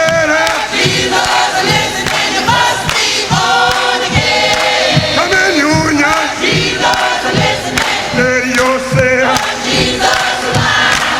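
Music: several voices singing together with vibrato over low drum hits.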